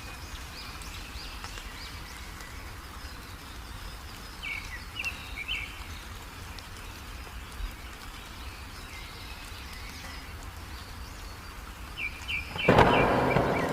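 Birds chirping in short bursts over a steady rain hiss. Near the end a sudden loud burst of noise breaks in and fades slowly.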